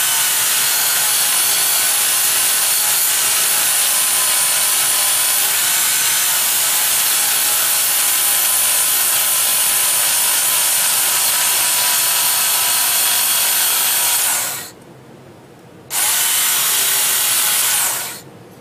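Electric knife grinder running, grinding the corner of a stainless steel plate clean. It runs steadily for about fifteen seconds, stops, runs again for about two seconds and stops near the end.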